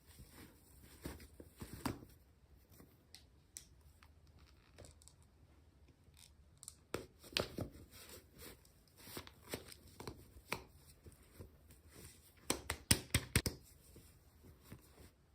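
Hands opening and handling small packaging: scattered tearing, rustling and light clicks, with a quick run of sharp clicks near the end.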